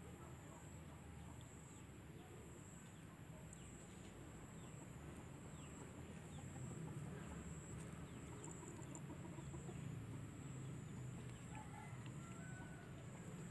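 Faint outdoor ambience: chickens clucking in the background over a steady high-pitched insect drone.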